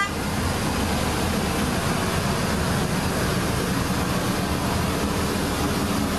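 Large Hyster forklift's engine running steadily under load as it carries a loaded pallet, a constant low drone with no change in pitch.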